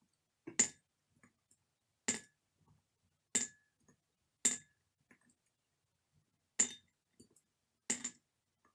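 Chopsticks clinking against a ceramic bowl: about six sharp, irregularly spaced clinks, a second or two apart, some with a brief ring.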